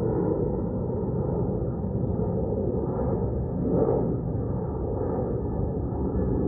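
Steady low outdoor ambient rumble with no clear individual sound, swelling briefly about four seconds in.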